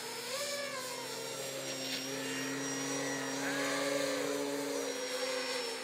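Propellers of radio-controlled model aircraft whining, one pitch held steady and another wavering up and down as the throttle changes.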